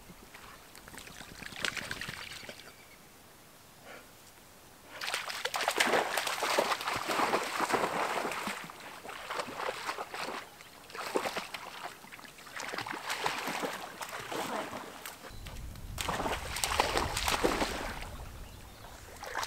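A dog wading and splashing through shallow pond water, in bursts of sloshing a few seconds long with quieter pauses between.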